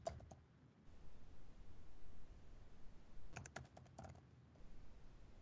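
Faint computer keyboard typing, as a commit message is keyed in: a couple of keystrokes at the start, then a quick run of about half a dozen keystrokes about three and a half seconds in.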